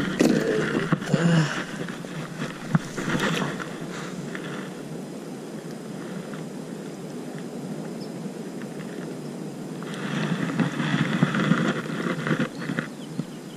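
Rustling and scuffing from someone moving on a gravelly shoreline while handling a caught largemouth bass, with a few sharp clicks early on, then a quieter steady stretch, and water splashing near the end as the fish is put into the shallows.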